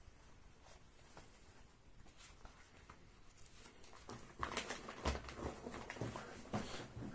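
Rustling and handling of a plastic folder and its papers: faint scattered ticks at first, then louder rustling with a few knocks from about four seconds in.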